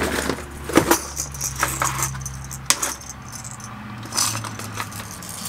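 Hard plastic crankbait fishing lures clicking and clattering against each other and a plastic tackle box as they are handled and sorted, in irregular clicks and rattles.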